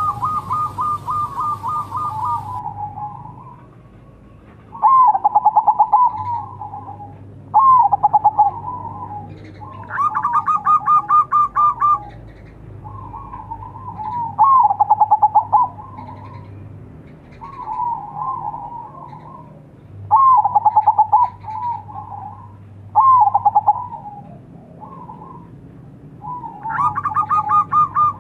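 Zebra dove (perkutut) cooing: a quick bubbling phrase of a second or two, repeated about every three seconds.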